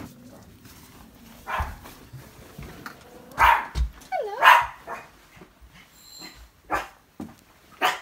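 Small chihuahua-type dog barking in short, sharp bursts, a few times, the two loudest about three and a half and four and a half seconds in.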